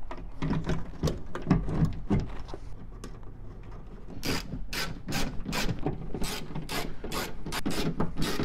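Hand tools on a car door: a 6x9 speaker being set into the door opening with soft handling knocks, then, from about four seconds in, a run of sharp uneven clicks, several a second, as a hand screwdriver drives the speaker's mounting screws.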